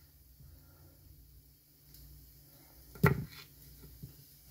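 Kitchen knife slicing cherry tomatoes on a bamboo cutting board: mostly quiet, with one sharp knock of the blade on the board about three seconds in and a smaller one just after.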